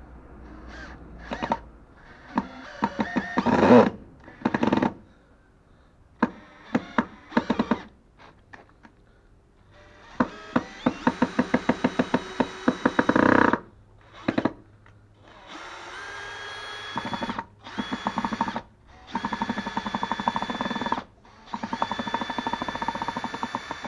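Makita DHP481 18V cordless combi drill driving a large wood screw in stop-start bursts, with sharp clicks about three or four times a second during the first bursts: the bit is not the right one for the screw head. Near the end it runs longer with a steady motor whine, pausing briefly a few times.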